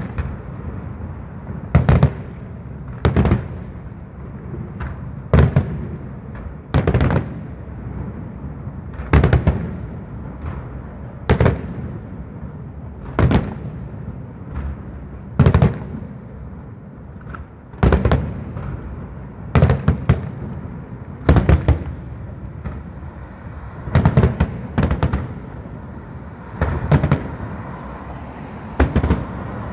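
Aerial firework shells bursting in a steady series, a sharp bang every second or two, with a low rumble between the bangs.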